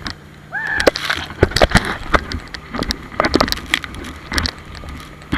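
Sea spray and splashes pattering irregularly against a camera on a towed banana boat, over wind buffeting the microphone and a low steady hum. A short cry about half a second in.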